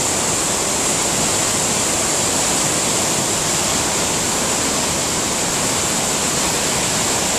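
A cascade of Iguazu Falls close by: a loud, steady rush of falling water crashing onto rocks.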